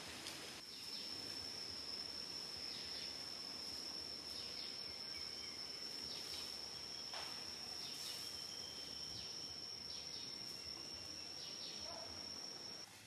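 Steady, high-pitched insect call holding one unbroken tone, cutting off abruptly near the end, over faint outdoor hiss and a few soft scattered rustles.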